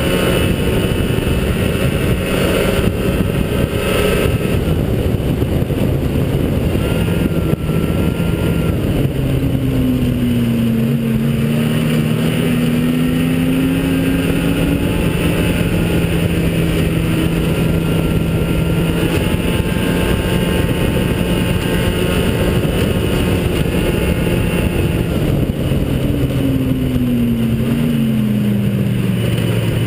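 Ski-Doo Citation SS snowmobile's Rotax two-stroke twin running under way. Its pitch dips and climbs back about a third of the way in, and falls steadily near the end as the throttle comes off.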